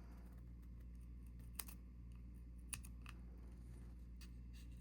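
A few faint, sharp clicks and taps of small tools handling the parts of an opened wristwatch, two of them standing out about one and a half and almost three seconds in, over a low steady hum.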